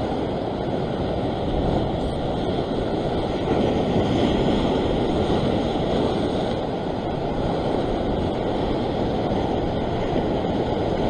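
Ocean surf washing and churning over a rock ledge, a steady rushing noise that swells a little about four seconds in.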